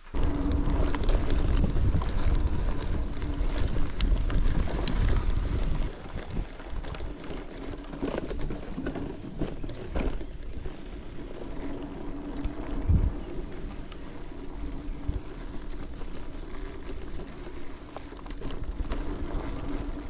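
Mountain bike being ridden over a rough trail: a continuous rumble of tyres and wind noise, with scattered knocks and rattles over bumps. It is loudest for the first six seconds, then settles to a lower, steadier rumble with a faint hum.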